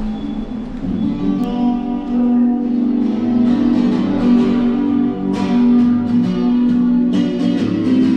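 Guitar music: held, plucked notes with a few sharp strummed chords, the strongest about five and seven seconds in.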